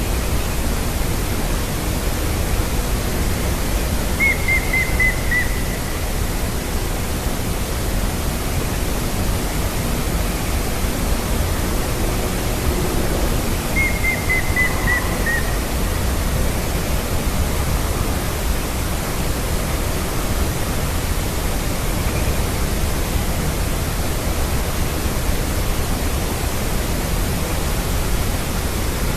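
Grey-headed woodpecker calling twice: each time a quick series of about six whistled notes, falling slightly in pitch, about ten seconds apart. The calls are faint over a steady rushing background noise.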